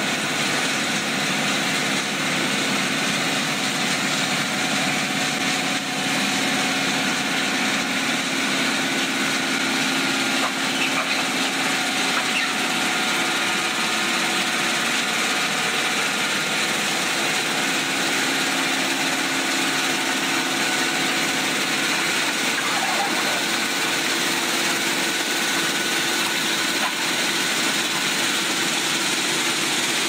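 Ballast shoulder-cleaning machine at work: its engines running and the digging wheel chewing through trackside ballast, a loud, steady mechanical din with a few faint held tones.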